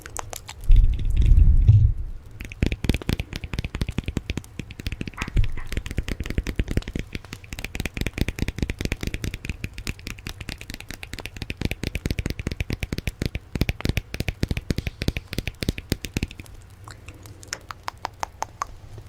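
A loud low rumble about a second in, then fast ASMR tapping: many quick, crisp taps a second that thin out near the end.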